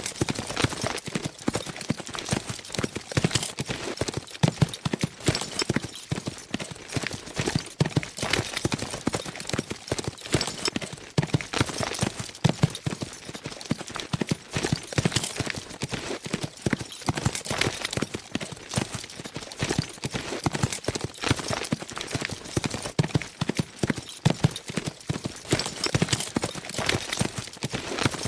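Several horses galloping fast, a dense continuous patter of overlapping hoofbeats.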